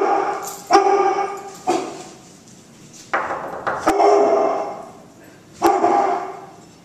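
A dog barking in reaction to a knock at the door, about six barks spread over several seconds.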